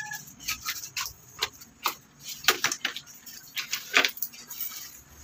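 Irregular light clicks, taps and rustles of small objects being handled, with no steady sound behind them.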